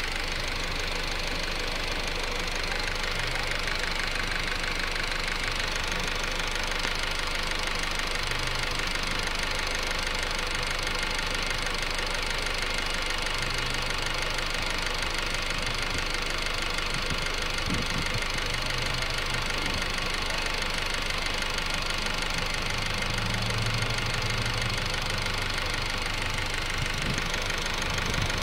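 2008 Honda Civic EX running steadily, with a low hum that swells briefly several times. The owner hears a weird noise from the rear of the car and cannot place it.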